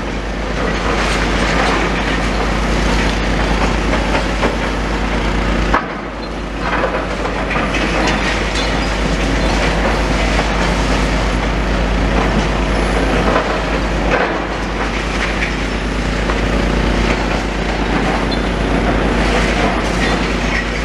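Demolition excavator running and working on a building's wall: steady engine noise with irregular clattering and cracking of breaking masonry and rubble.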